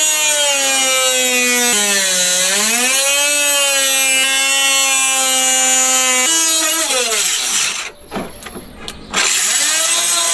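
Handheld power tool whining at speed, its pitch sagging and recovering as it bites into the car's body panel; it stops briefly about three-quarters of the way in, then starts again near the end.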